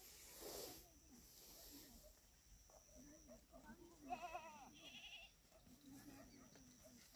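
Faint goat bleating, with two quavering calls about four and five seconds in.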